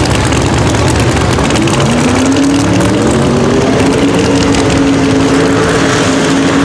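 Drag race car engine running loud. Its pitch climbs about two seconds in, then holds steady at high revs.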